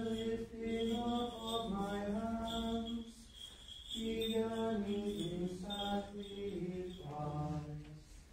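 A voice chanting liturgical plainsong in sustained sung phrases, with short breaks about three seconds in and about seven seconds in; the last phrase is pitched lower.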